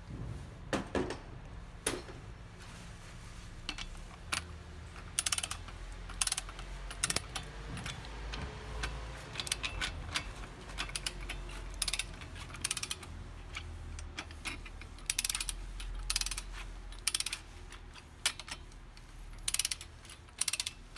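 Socket ratchet wrench clicking in repeated short runs, with brief pauses between them, as the wheel's lug nuts are run down and snugged hand-tight before final torquing.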